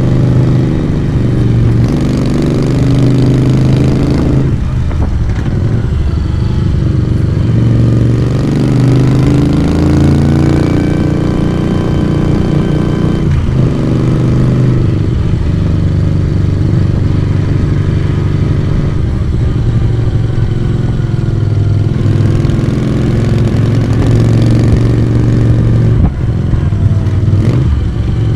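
Moto Guzzi V35's air-cooled V-twin engine and exhaust running under way, its note rising and falling with the throttle, with brief dips in the sound about four and thirteen seconds in.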